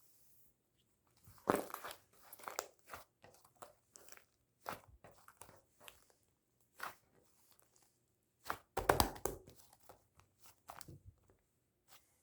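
Irregular close-up crunching and crackling in short bursts, loudest about a second and a half in and again about nine seconds in.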